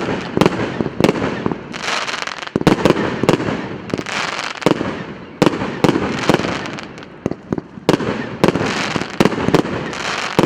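P8595 "Borodino" firework going off shot after shot. Sharp bangs come about one every half second to a second, each trailing off into a fading rush of noise.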